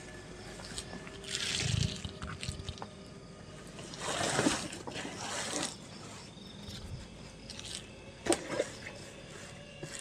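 Nylon sleeping bag rustling in a few swells as someone wraps herself in it and shifts to settle, with a couple of sharp knocks near the end.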